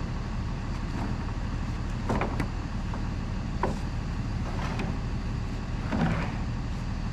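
Wooden roof trusses knocking and clattering as they are shifted by hand on a stack, a handful of separate wood-on-wood knocks over a steady low rumble.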